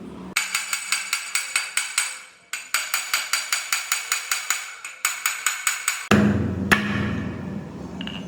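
Rapid, even wood-block-like percussion, about seven sharp clicks a second, in three runs with short breaks, cutting off abruptly about six seconds in. A low rumble with a single sharp click takes over near the end.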